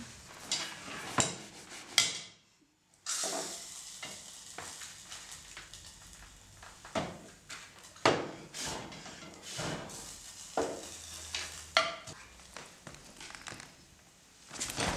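Props being handled on a table: a string of sharp knocks and clinks over a soft hiss, with a brief dropout about two seconds in.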